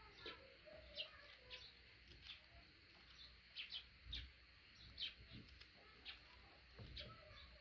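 Faint, scattered short chirps of small birds, about ten in all, over a quiet background, with a couple of soft low thumps.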